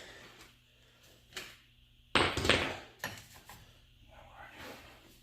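A sharp knock about two seconds in, then a few lighter clicks, as tools and suspension parts are handled.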